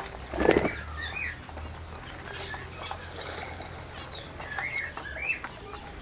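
Indian ringneck parrots giving short, arched chirps, a couple of them near the end, with a brief flutter of wings about half a second in.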